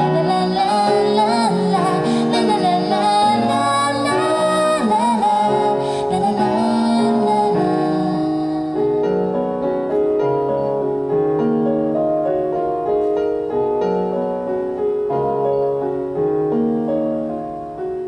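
A woman sings over a digital keyboard playing a piano sound. About eight seconds in, her voice stops and the keyboard plays the closing passage on alone, fading out at the end.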